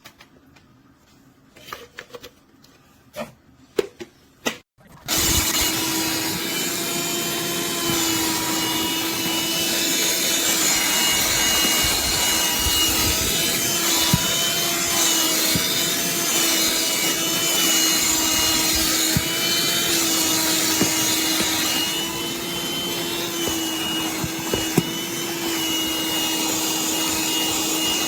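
A few handling clicks and knocks, then about five seconds in a Black+Decker Dustbuster cordless handheld vacuum switches on suddenly. It runs steadily with a whine that dips and rises slightly in pitch as its motor is loaded.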